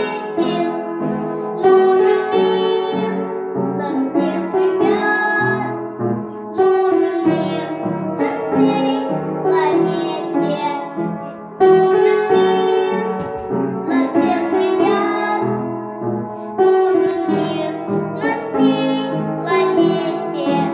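A six-year-old girl singing a song with piano accompaniment, her voice coming in phrases of a few seconds each.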